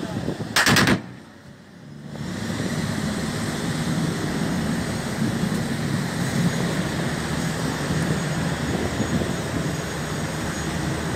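A short burst of gunfire, several shots in quick succession, about half a second in. It is followed by the steady running of the fishing boat's engine with wind and water noise.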